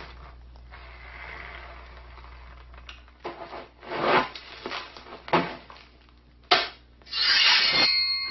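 A series of short rubbing and scraping strokes, then a sharp click and a loud rushing scrape near the end, with a thin ringing tone trailing from it.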